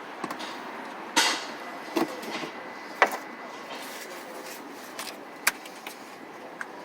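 Engine running with a steady mechanical noise, broken by a few sharp, irregular knocks, the loudest about three seconds in. The uploader takes the noise for rod knock, a worn connecting-rod bearing.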